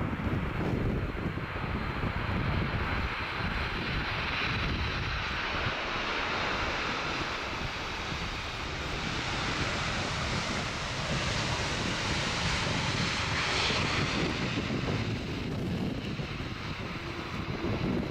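Jet engines of a Boeing 747-400 freighter on landing approach, swelling to a peak past the middle and then fading. Gusting wind rumbles on the microphone underneath.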